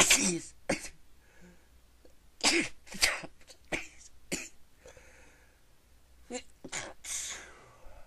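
A person sneezing over and over: about eight short, sharp sneezes, several coming in quick pairs, with a longer breathy one near the end.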